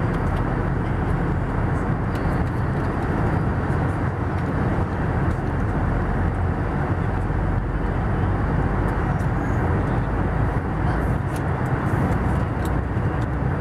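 Airbus A320 cabin noise in flight: a steady, even rush of engine and airflow, with nothing standing out. The aircraft is on its approach to land.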